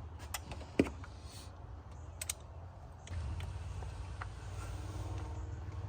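A few light clicks and knocks, the sharpest a little under a second in, then a low steady hum starting about three seconds in.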